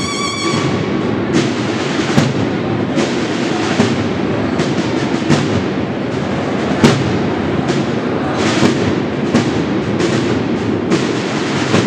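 Audience applauding a cornet-and-drum band, a dense patter of claps. The band's last held cornet chord stops just after the start.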